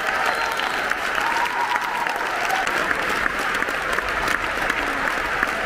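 Large theatre audience applauding: many people clapping at once in a dense, steady mass of claps.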